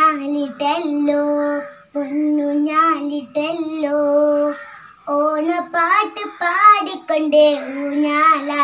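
A young girl singing solo and unaccompanied, holding long steady notes in short phrases with brief pauses for breath between them.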